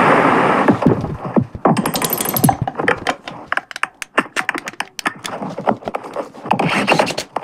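Rapid, irregular series of sharp clicks and knocks, with a short burst of noise right at the start.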